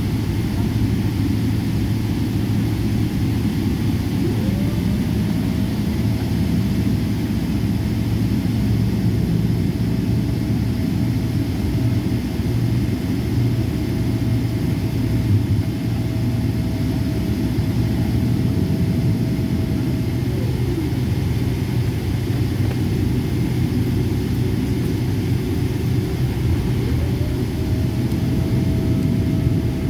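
Steady jet airliner noise heard from inside the cabin, a low rumble. A thin engine whine rises to a steady pitch about four seconds in, drops away near twenty seconds, and rises again near the end as the engines change power.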